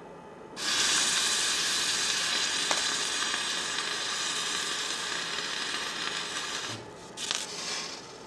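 Water dripped onto a very hot electric hotplate, hissing as it flash-boils on the metal, on a plate hot enough for the drop to float on its own vapour (Leidenfrost effect). The hiss starts suddenly about half a second in, holds for about six seconds, then cuts off, with a couple of short hisses near the end.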